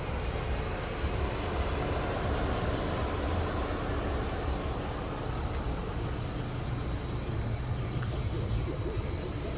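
Mercedes-Benz 300CE at idle, a steady low rumble with hiss and no distinct events.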